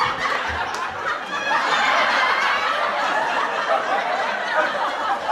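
Sitcom laugh track: a crowd of people laughing together, holding steady.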